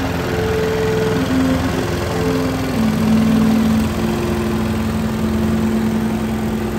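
Small single-cylinder engine of a single-axle walking tractor running steadily at low speed, with a few held tones over it that step to new pitches.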